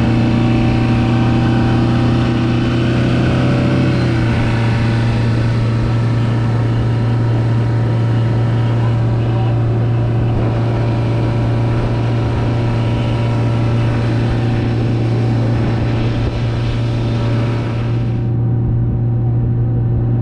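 Yamaha 115 outboard motor running steadily at speed, pushing a boat; its pitch drops a little about four seconds in and then holds.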